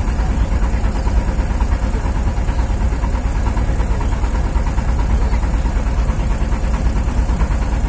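Wooden river boat's engine running steadily while under way, a deep unbroken drone.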